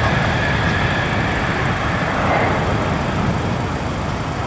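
Twin Pratt & Whitney PW4062 turbofans of a Boeing KC-46 tanker at takeoff thrust as it lifts off on a touch-and-go: steady jet engine noise with a high whine that fades about two seconds in, the whole sound slowly growing fainter as it climbs away.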